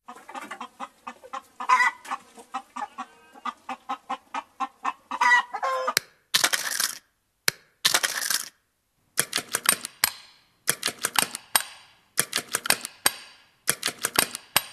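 A hen clucking in quick repeated pulses, with a louder squawk about two seconds in and again about five seconds in. From about six seconds on come harsher, noisier bursts of cackling separated by short pauses.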